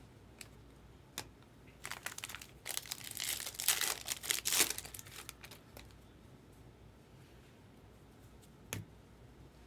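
A foil trading-card pack wrapper is torn open and crinkled in a burst of crackling that lasts about three seconds. A single knock comes near the end.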